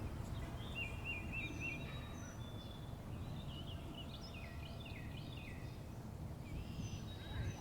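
Songbirds chirping and whistling, faint: short repeated notes, then a run of quick down-slurred whistles, over a steady low background noise.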